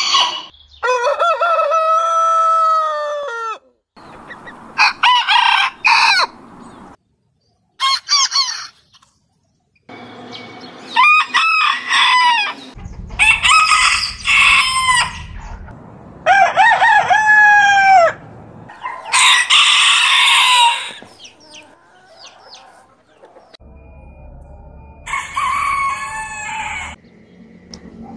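Roosters crowing one after another, about eight crows from several different birds, each a drawn-out cock-a-doodle-doo. Some crows cut off suddenly between them.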